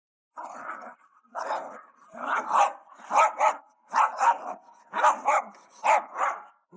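A dog barking in a series of about seven short outbursts, most of them double barks.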